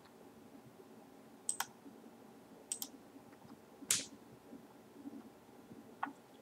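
A few faint, sharp computer mouse clicks, spaced a second or so apart, the one about four seconds in the loudest, as items are selected in the software's catalog.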